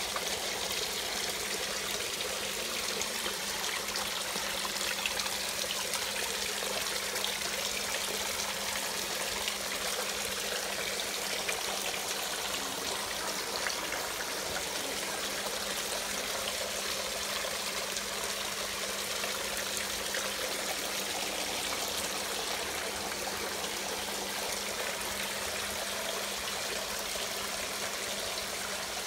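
Water running and trickling steadily during a water change in a snail breeding pond.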